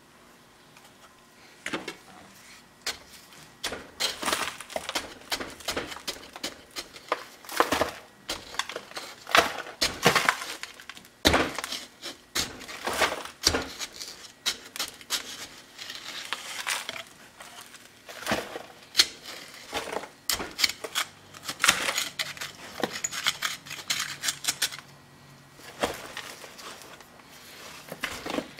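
A small steel hand tool scraping and chipping through packed casting sand around a freshly poured cast iron cylinder head, with irregular scrapes and metallic clinks, some ringing briefly, as the tool strikes the iron.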